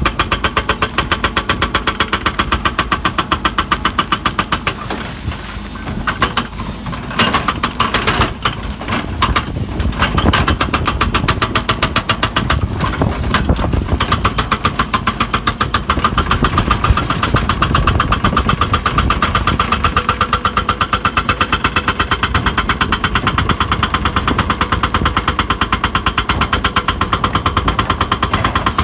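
Hydraulic rock breaker on a Hidromek 140 excavator hammering rock in rapid, even blows over the machine's running engine. The hammering breaks up into a few irregular strokes for several seconds about five seconds in, then resumes steadily.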